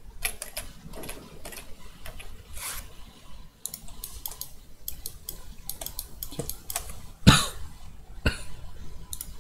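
Irregular clicking of a computer mouse and keyboard keys at a desk, with a louder short sound about seven seconds in and another sharp click a second later.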